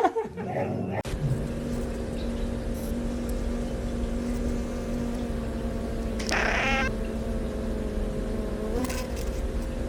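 Steady low hum with a level tone. About six seconds in comes one short pitched animal cry, likely a pet's meow or whine.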